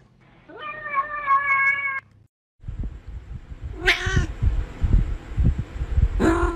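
White long-haired cat meowing twice, short calls about two seconds apart, as a hand pats it on the head, with low thumps and rumble of handling underneath. Before it, a single held, steady tone lasts about a second and a half.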